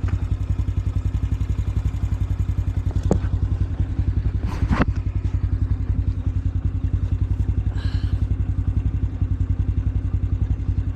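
An old four-wheeler's Loncin engine idling steadily with an even low putter. A couple of brief sharp scrapes or knocks sound close by about three and five seconds in.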